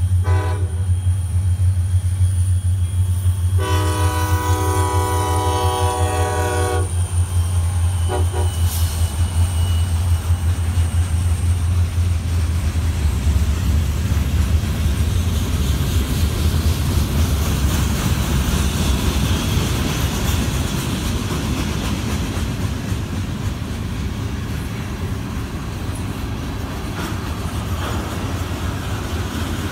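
Freight locomotive horn on CSX SD40-2s sounding three times: a short blast, a long blast of about three seconds, then another short one, over the low rumble of the locomotives' EMD two-stroke diesels. The rumble fades about halfway through, leaving the steady rolling clatter of boxcars and tank cars passing.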